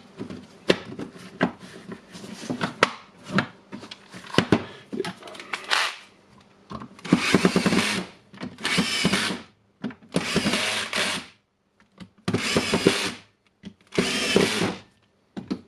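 Clicks and knocks of plastic housing parts being handled and fitted, then a cordless electric screwdriver running in five short bursts of about a second each, driving in screws to close the grinder's housing.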